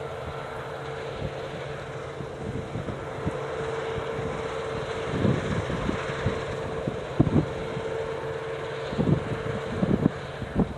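A combine harvester working across the field gives a steady, distant machine hum. Gusts of wind buffet the microphone over it several times and are the loudest sound.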